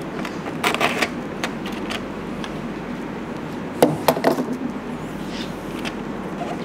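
Stiff red masking tape being laid and smoothed down by hand over a plywood board: scattered crackles and taps, loudest about a second in and again near the middle, over a steady background noise.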